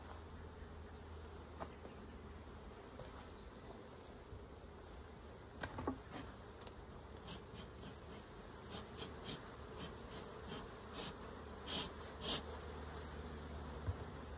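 Honeybees buzzing in a steady hum around an opened hive, with scattered clicks and scrapes of a metal hive tool on the wooden frames and comb, the loudest about six seconds in and again near twelve seconds.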